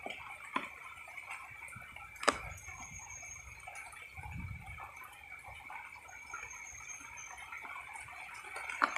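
Quiet handling sounds as a hook is worked free by hand from a caught mangrove catfish: a few sharp clicks, the loudest about two seconds in, over a faint steady high hum and light rain.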